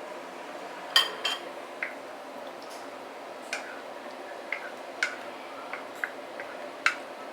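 A cooking utensil knocking and clicking against the pan now and then while stirring in starch solution to thicken the tomato chicken sauce, over a low steady background.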